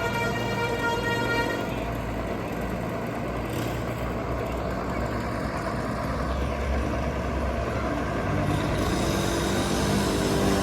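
Multi-tone 'telolet' bus horn sounding, then cutting off about a second and a half in, leaving the low rumble of a bus engine and road noise.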